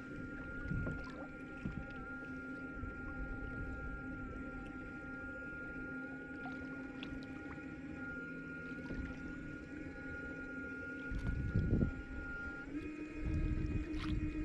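Background music: a sustained synth-pad chord of steady held tones that moves to a new chord near the end, over low wind rumble on the microphone that gusts louder in the last few seconds.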